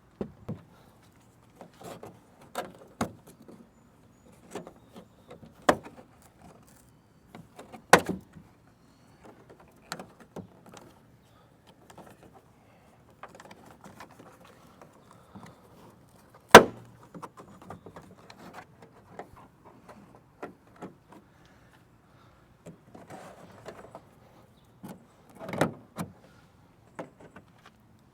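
Plastic trunk trim panels and covers in a car being pried and pulled loose by hand: irregular clicks, snaps and knocks of clips and plastic, with the sharpest snaps about 8 and 16 seconds in.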